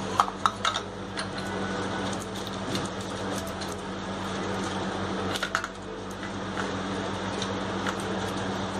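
Paneer being grated on a metal box grater: repeated rasping strokes, with a few sharp clicks of the grater against the plate shortly after the start and again about five and a half seconds in, over a steady low hum.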